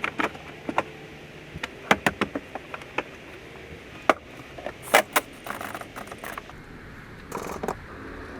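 Irregular clicks, taps and light rattles of small tools and parts being handled, with a few sharper knocks about two, four and five seconds in and a brief scraping rattle near the end.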